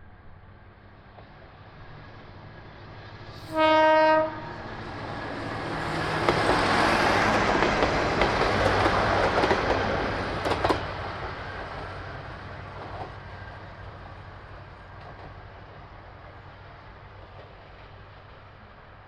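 KiHa 200 diesel railcar sounding one short horn blast, then passing by, its engine and wheels swelling to a peak and slowly fading away. A couple of sharp clacks come as it goes past.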